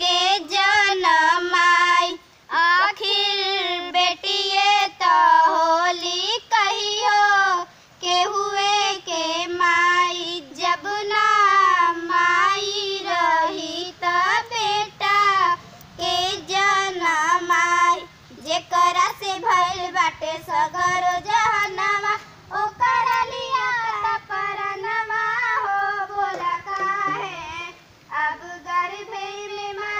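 A young girl singing solo and unaccompanied: a slow, plaintive melody with wavering, ornamented pitch, sung in phrases of a few seconds broken by short pauses for breath.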